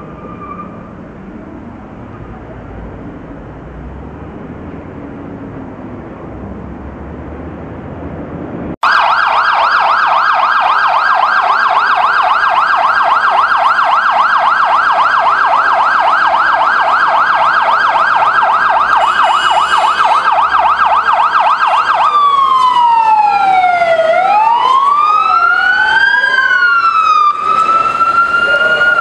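Low traffic and engine rumble for the first nine seconds. Then a fire engine's siren starts loud, in a fast warble. About 22 seconds in it changes to a slower wail that rises and falls every couple of seconds, and near the end a second siren's wail crosses it.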